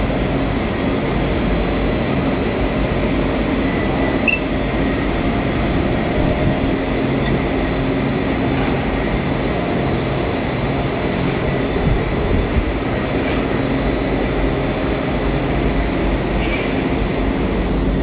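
Rubber profile extrusion and microwave vulcanization production line running: a steady machinery drone with a thin, constant high whine.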